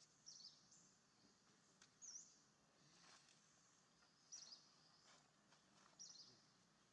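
Faint high-pitched animal chirps, four short calls spaced about two seconds apart, over a steady high hiss.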